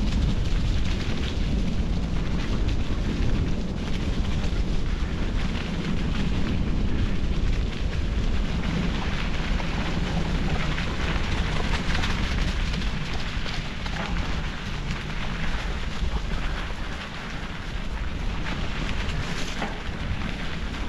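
Steady rumble of wind on the microphone mixed with bicycle tyres rolling and crackling over a trail.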